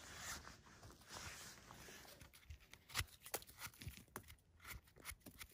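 Knife scraping and cutting the stem of a freshly picked porcini mushroom: a run of faint short scrapes and clicks, coming thicker in the second half.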